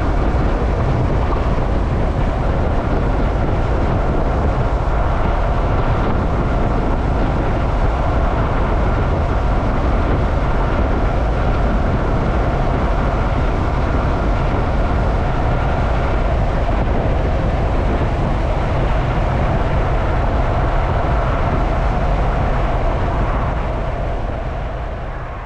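Yamaha motorcycle cruising at a steady speed: a continuous rush of wind over the rider's camera with the engine and tyre drone beneath, fading out near the end.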